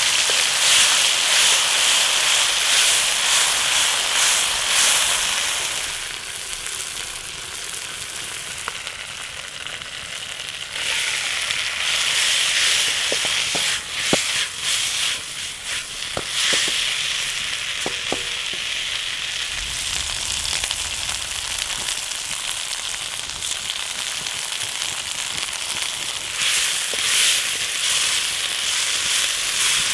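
Oil sizzling in a wok as spice paste and then sliced red onions fry, stirred with a wooden spatula. The sizzle eases after about six seconds and comes back strongly about a third of the way in, with scattered clicks and knocks in the middle.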